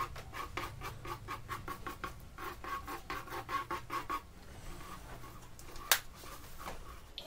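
Squeezed acrylic paint bottle sputtering as paint and air are forced out of its nozzle, a rapid run of squelching spurts about six a second that stops after about four seconds. A single sharp click comes near the end.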